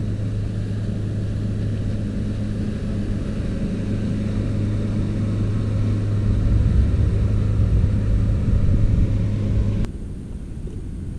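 Outboard motor on a passing pontoon boat running at a steady cruising speed, a low steady hum with rumble that grows louder and then stops abruptly just before the end.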